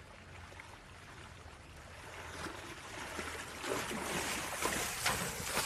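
A horse wading through a shallow river, its legs splashing through the water. The splashing grows louder and choppier from about halfway through as the horse comes closer.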